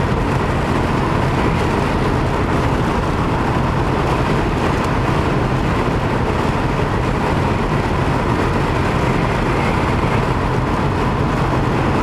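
Steady road and engine noise from a moving car, heard from inside the cabin: an even low rumble with hiss above it.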